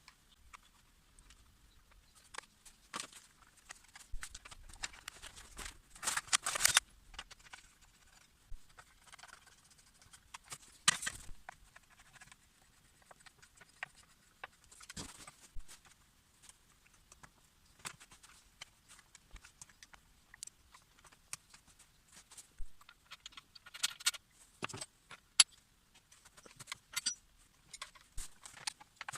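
Scattered light clicks, rattles and scrapes of small hard objects being handled, with louder rattling bursts about six, eleven and twenty-four seconds in.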